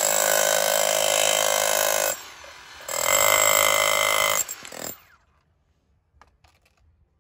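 Bosch 18-volt cordless rotary hammer drilling a 40 mm hole into concrete in hammer mode. It runs steadily for about two seconds, lets off briefly, then runs for about two more seconds and stops about five seconds in.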